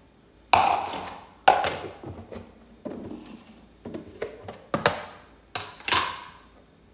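Plastic kitchenware knocking on a countertop: a plastic bowl and a lidded plastic storage box set down and handled, and the box's snap-on lid pulled off, in a series of sharp clacks and taps.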